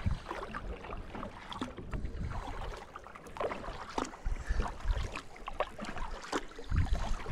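Kayak paddle strokes in calm water, the blades dipping and splashing on alternate sides, with scattered drips and light clicks over low, uneven rumbling.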